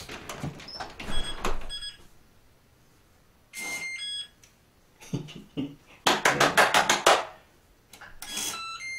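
A newly installed electronic digital door lock powering up and being tested: short electronic beeps and tone chimes from its keypad, and a loud rattle from the lock mechanism about six seconds in. The lock is working.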